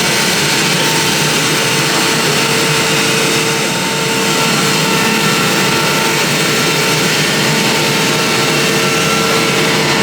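Lucas slabber sawmill's petrol engine running steadily under load as it cuts a slab.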